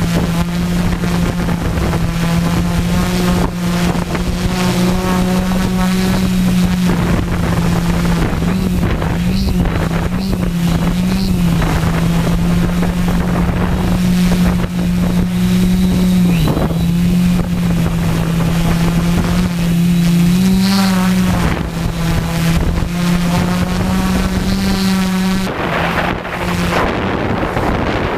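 Hexacopter's six electric motors and propellers buzzing in a steady hum, its pitch wavering now and then as the throttle is corrected, with wind noise on the microphone. Near the end the hum drops back and the wind rush grows louder as the craft flies forward.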